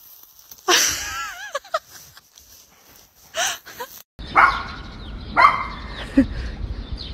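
A dog gives two short wavering, warbling cries in the first few seconds. After an abrupt change, a dog barks about three times over wind rumble on the microphone.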